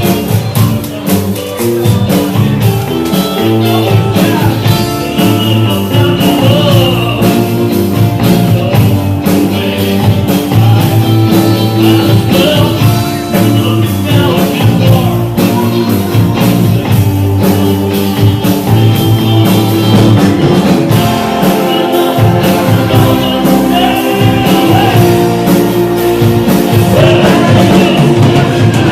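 Rock-and-roll band music with guitar, a steady beat and a singing voice.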